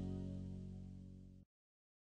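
Background music: a held chord ringing out and fading, then cutting off abruptly to silence about a second and a half in.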